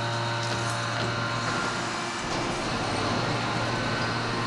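Steady hum and whine of the hydraulic system of a 2500 t open die forging press and its 8 t manipulator while forging hot steel. About two seconds in the hum gives way to a deeper rumble.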